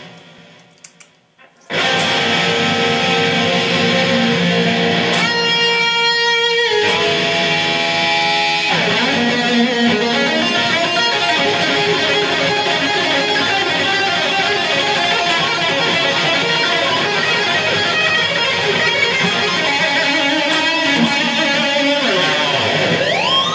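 Electric guitar played in fast metal riffs and leads. A ringing note fades almost to silence before the playing starts about two seconds in, and near the end the pitch dives down and swoops back up on the tremolo arm.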